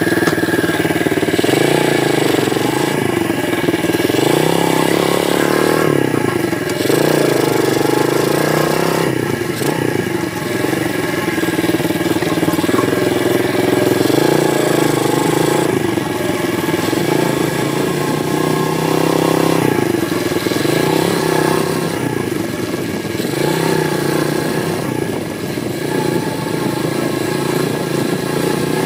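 Apollo 125cc pit bike's single-cylinder four-stroke engine running under load while being ridden, the revs climbing and dropping back again and again as the throttle is opened and closed.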